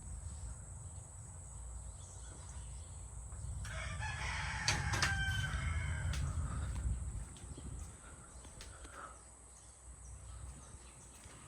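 A rooster crowing once, about four seconds in, over a low rumble of wind on the microphone that eases off after about seven seconds.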